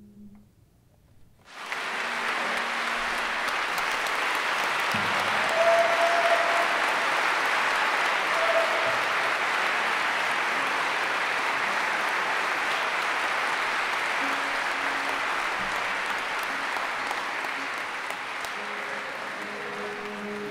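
Audience applauding: the clapping breaks out suddenly about a second and a half in, holds steady, and eases a little near the end as a few guitar notes sound.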